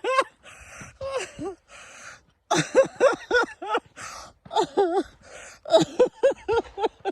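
A person laughing hard in quick breathless bursts, with wheezy, gasping in-breaths between them.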